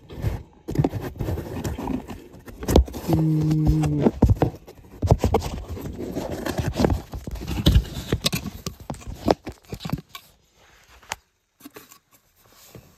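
Homemade model elevator car scraping, rattling and knocking in its shaft as it rides, with a short steady low hum about three seconds in; it runs rough. The noise stops about ten seconds in.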